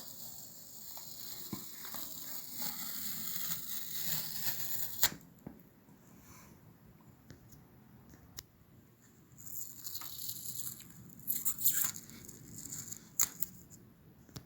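Aerosol spray can spraying red top-coat paint: a steady hiss for about five seconds that cuts off, then a few clicks, and later shorter bursts of hissing.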